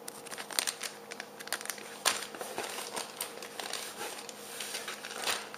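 Plastic bait packaging crinkling and rustling in irregular crackles as hands rummage in a cardboard shipping box, loudest about two seconds in and near the end.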